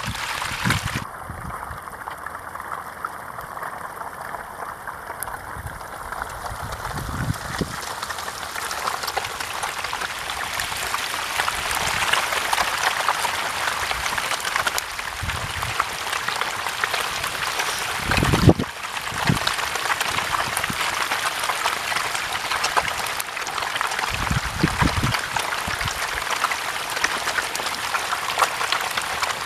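A dense mass of hybrid magur catfish thrashing and splashing at the water's surface in a feeding frenzy, making a continuous crackling, fizzing patter of water. It fills out after about eight seconds. A few short low thumps cut in, the strongest about two-thirds of the way through.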